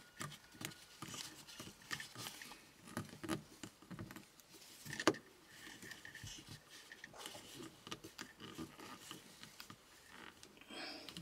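Irregular plastic clicks and knocks of a dashcam being pushed onto its ball-joint windshield holder, with one sharp click about five seconds in. The fit is a little tight.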